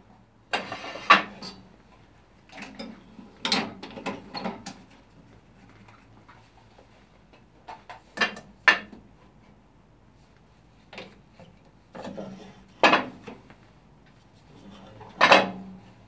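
Irregular knocks, clatters and scrapes of a wooden blank being handled on a bandsaw's metal table and the rip fence being slid and locked against it, with quiet gaps between; the loudest knock comes near the end.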